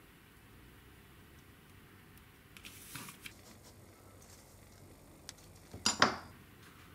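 A kitchen knife is set down on a parchment-covered wooden cutting board, making two quick sharp knocks near the end. Before that there are a few light rustles and clicks of handling over quiet room tone.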